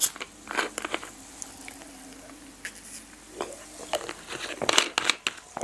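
Plastic bottle of soda water being twisted open, with a sharp burst as the cap lets go at the start. Irregular clicks and crinkles of the plastic bottle and cap follow, handled close to a lapel microphone, thickest near the end.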